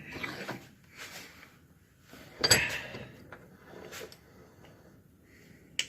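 Bench vise being cranked to press a hinge pin into a VW Beetle door hinge: a series of metal scrapes and clunks about a second apart, the loudest about two and a half seconds in, and a sharp click just before the end.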